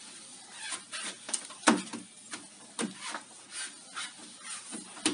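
Irregular rustling and scraping with a few light knocks, the loudest about a second and a half in.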